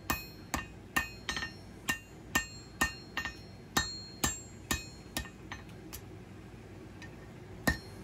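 Hand hammer striking a hot steel blade blank on an anvil, about two blows a second, each with a short metallic ring. The blows stop for about two seconds and start again near the end.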